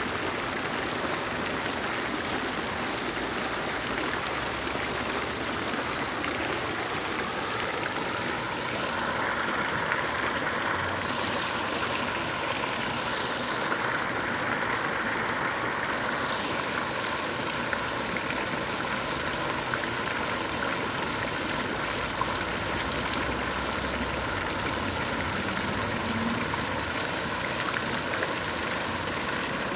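Water fountain jets splashing steadily into the basin. A faint steady hum joins about a quarter of the way in.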